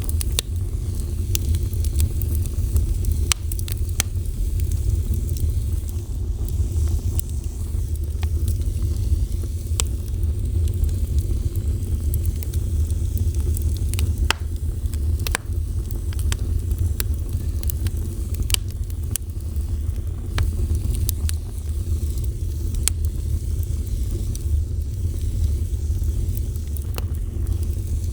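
Fire burning steadily, with a low rumble and many scattered sharp crackles and pops.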